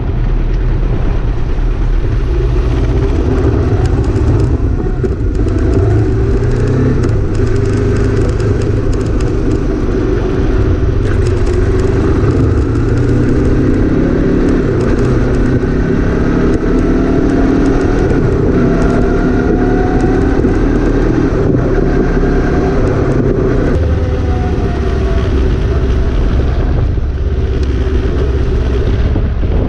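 Motorcycle engines running, with a heavy low rumble and engine notes that slowly rise and fall in pitch.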